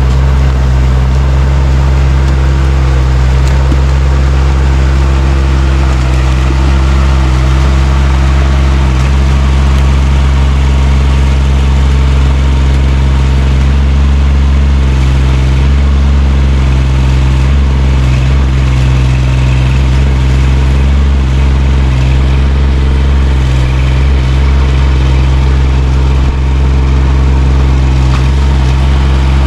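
Chinese-made mini excavator's engine running steadily up close, its pitch wavering a little in the middle of the stretch as the machine works its rake attachment and tracks through the brush.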